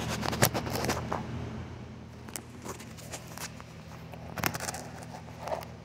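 Scattered sharp clicks and light knocks from hands moving tools and small metal parts, over a steady low hum.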